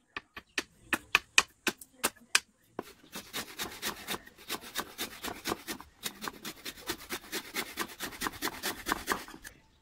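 A long blade striking a kamagong wood spoon blank in sharp clicks, about four a second. From about three seconds in, a hand saw cuts the wood in quick back-and-forth strokes, pausing briefly near the middle.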